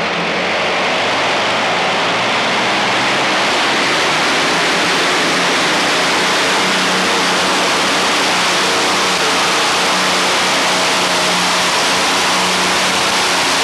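Modified pulling tractor's Allison V12 aircraft engine running at full power under load during a pull, a loud, steady, dense roar that holds its level.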